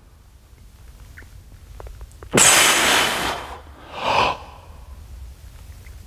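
A lifter's hard, forceful exhale about two seconds in, then a second, shorter breath, as he strains under a heavy back squat. A few faint clicks come just before.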